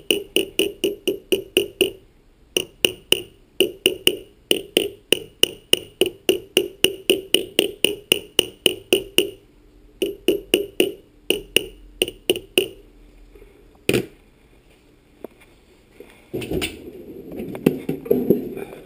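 Small hammer tapping on the metal end cap of a Sub-Zero refrigerator condenser fan motor clamped in a vise, seating the oiled cap back on the motor: runs of quick ringing metal taps, about four or five a second, with short breaks. Near the end comes one harder knock, then rustling handling noise.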